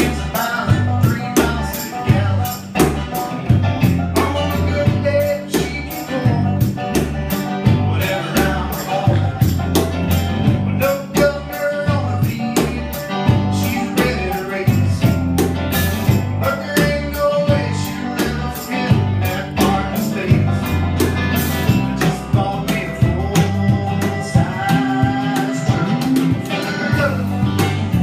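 Live blues-rock band playing: electric guitars over a steady bass line and a percussion beat, with a man singing.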